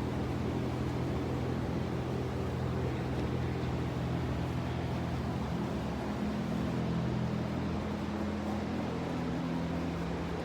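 Steady mechanical hum with a low electric drone and an even noisy hiss over it, like a motor or fan running.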